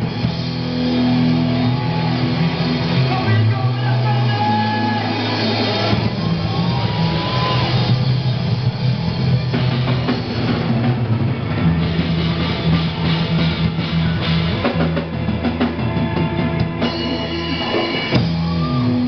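Live rock band playing loud amplified electric guitars over long held bass notes, with a falling slide in the low notes near the end.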